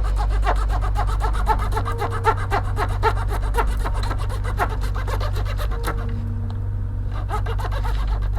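Rapid back-and-forth scraping strokes of a hand tool working small wooden grating pieces for a model ship, several strokes a second, pausing about six seconds in and starting again near the end. A steady low hum runs underneath.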